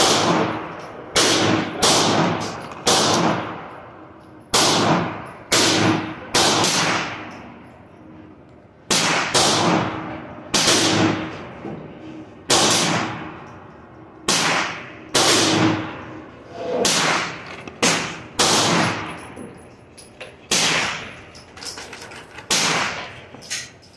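Gunshots fired at an irregular pace, roughly one a second with a few short pauses, each crack ringing on in the reverberation under a covered range roof.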